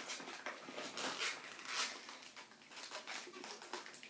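Snack wrapper crinkling and rustling as it is handled and opened, in short irregular crackles.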